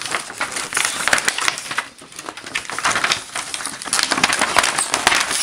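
Thin plastic sheet in a TV backlight panel being handled and lifted, giving dense irregular crackling and clicking, with a brief lull about two seconds in.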